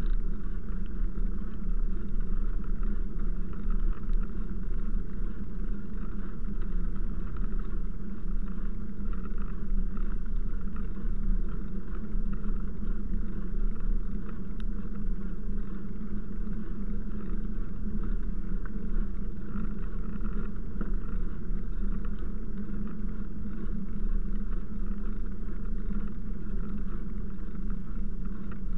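Steady, unbroken running noise of riding along a wet paved path, a constant low rumble with a hiss above it that never changes.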